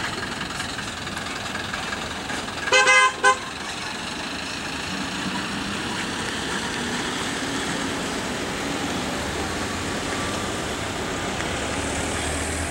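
A vehicle horn honks twice in quick succession about three seconds in, over the steady running noise of vehicles on a hill road. A low engine rumble builds near the end.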